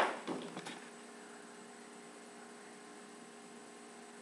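Steady faint electrical hum and hiss, with a short burst of handling noise and a few light clicks in the first second.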